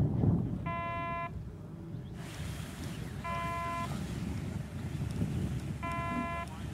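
Slow repeating electronic beeps, three in all, each about half a second long and about two and a half seconds apart: the audible signal tone of a glider winch launch, its slow pace the 'take up slack' signal. Wind buffets the microphone throughout.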